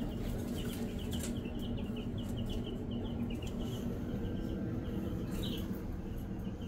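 Easter Egger chicks peeping: quick runs of short, high peeps, busiest in the first half, with one louder peep about five seconds in, over a steady low hum.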